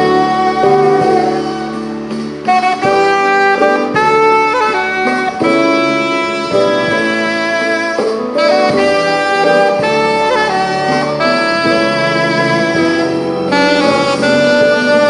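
Alto saxophone playing a melody of held notes, with an instrumental accompaniment underneath.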